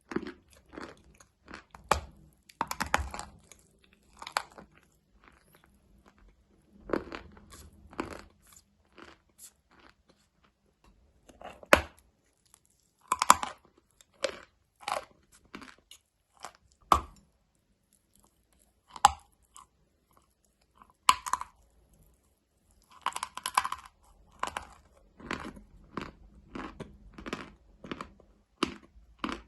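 A person biting and chewing hard, dry, chalk-like material close to the microphone: irregular sharp crunches, some in quick clusters, separated by short pauses.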